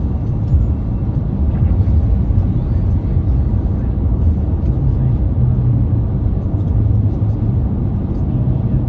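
Steady low road and engine rumble heard inside a car's cabin while cruising on a motorway.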